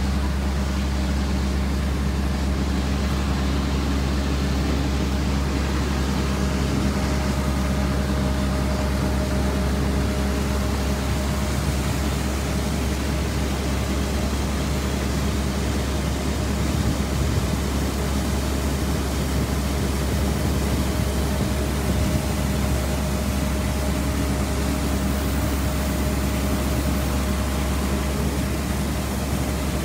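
A motor running steadily with a heavy low rumble and a faint even hum over it.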